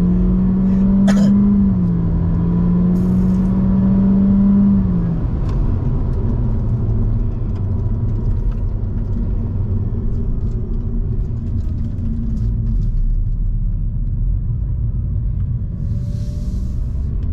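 Cabin sound of a 2022 Honda Civic 1.5 RS's turbocharged four-cylinder engine at full throttle: a steady high drone that steps down in pitch once, about two seconds in. About five seconds in the drone stops as the throttle comes off, leaving tyre and road rumble as the car coasts.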